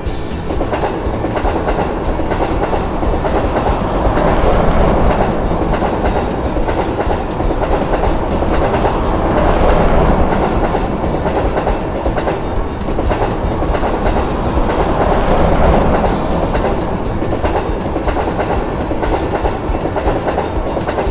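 Electric train running past on the rails, a steady rumble and clatter of wheels on track that swells louder three times.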